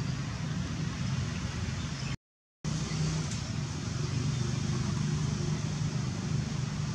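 Steady low rumble with an even hiss, like distant traffic, cutting out to silence for about half a second a little over two seconds in.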